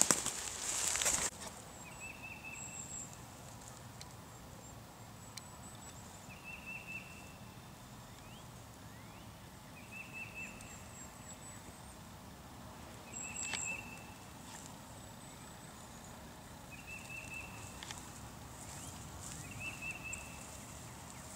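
Footsteps crunching through dry leaf litter for about the first second, then quiet outdoor ambience in which a distant bird repeats a short trill every few seconds, with faint high chirps between.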